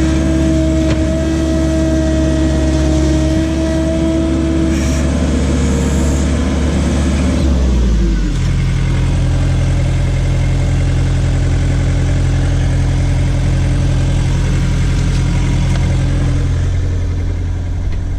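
John Deere skid steer's diesel engine running at high revs with a steady whine over it that stops about four seconds in; around eight seconds in the engine is throttled down and settles into a lower, steady idle.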